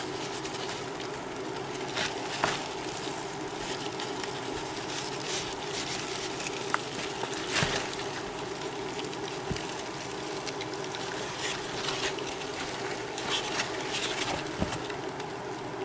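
Rustling and light scattered knocks of cardboard egg crate flats being moved and handled in a roach bin, over a steady low hum.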